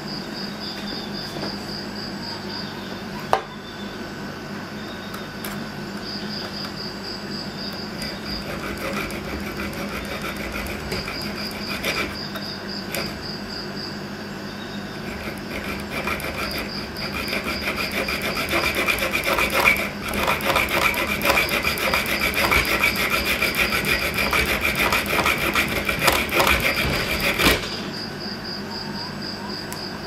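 Saw blade of a Leatherman Super Tool 300 EOD multi-tool cutting a metal tube held in a bench vise: rapid rasping strokes that begin about eight seconds in, grow louder midway and stop abruptly near the end.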